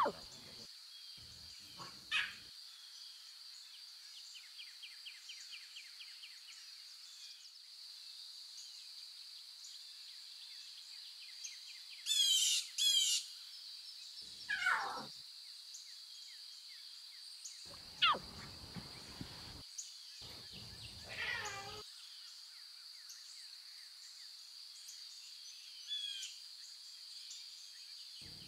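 Wildlife ambience: a steady high-pitched chorus of calling creatures, with scattered bird calls and chirps. The loudest is a burst of bright chirping about twelve seconds in, and a few short calls that fall in pitch come after it.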